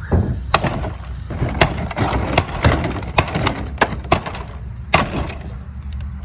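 Interior demolition of an old house: a string of irregular heavy blows with wood cracking and splintering, like sledgehammers tearing out walls.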